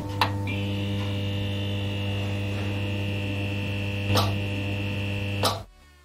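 Electrical hum and buzz of a neon sign, a sound effect for an animated neon logo: a steady low hum with a higher buzz on top, broken by short crackles just after the start, about four seconds in and again just before it cuts out at about five and a half seconds.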